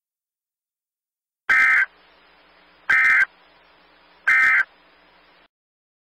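Emergency Alert System End-of-Message signal: three short buzzy bursts of SAME digital data, each about a third of a second long and about 1.4 seconds apart, starting about a second and a half in, over a faint hiss that stops just after the last burst. It marks the end of the tornado warning message.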